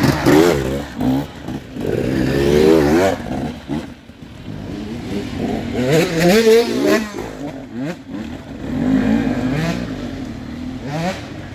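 Enduro dirt bike engines revving in repeated surges, the pitch climbing and falling again and again as the bikes claw up a slippery muddy climb. The engines drop back twice, around a third and two thirds of the way through.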